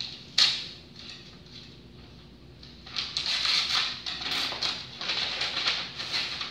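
Paper and a large manila envelope rustling as they are handled: one sharp crinkle about half a second in, then continuous rustling from about three seconds in.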